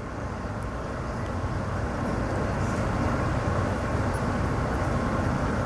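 Steady low engine rumble that slowly grows louder, like a vehicle or plane passing at a distance.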